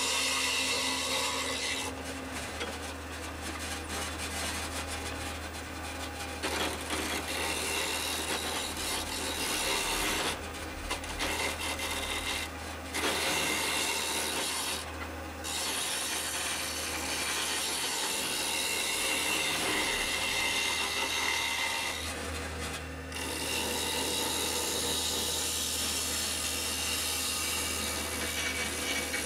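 A hand-held turning tool cutting a wooden vessel as it spins on a wood lathe, making a continuous scraping hiss over a steady low hum. The cutting noise drops out briefly a few times.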